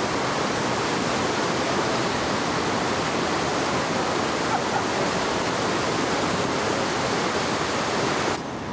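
Kern River in flood: a steady, loud rush of fast-flowing floodwater that cuts off suddenly near the end.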